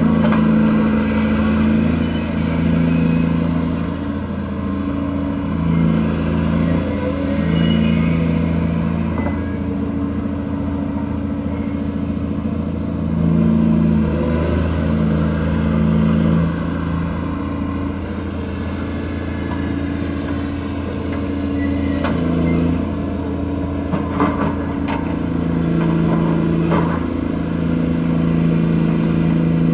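Diesel machinery of a gravel-carrying gut ship during cargo handling: a steady low engine drone whose load rises and falls every second or two. A few sharp clanks come near the end.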